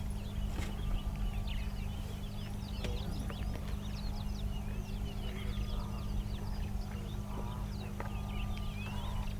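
Male lion tearing at and chewing a wildebeest carcass, with scattered sharp cracks, while many small birds chirp and a steady low hum runs underneath.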